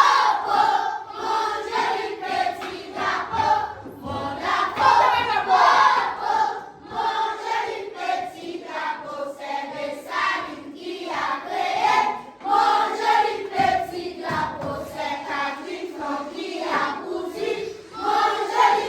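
A group of voices singing together in chorus, without a break.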